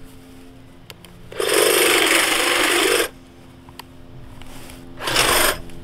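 Wild Badger 40-volt cordless hedge trimmer running in two bursts: one of about a second and a half starting about a second and a half in, then a shorter one near the end, quiet between.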